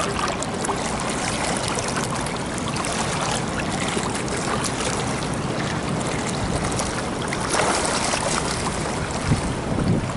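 Swimming-pool water splashing and sloshing as a swimmer does breaststroke frog kicks and glides. The sound is steady throughout, with louder splashes about seven and a half seconds in and again near the end.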